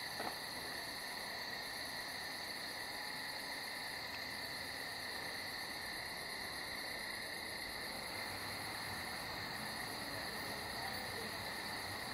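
Night chorus of crickets: a steady, unbroken high trill with several layered pitches. A faint low hum joins it about two-thirds of the way through.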